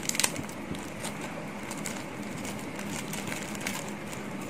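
Clear plastic bag crinkling as a small model-aircraft tail part is unwrapped from it, with a few sharper rustles just after the start, over a steady hum.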